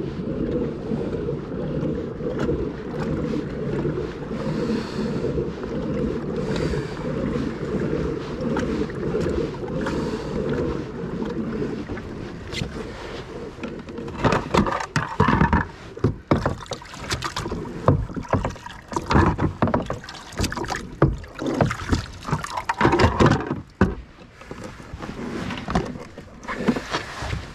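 Fishing kayak on the water: a steady low rushing noise for the first half, then irregular knocks and clatters from about halfway on.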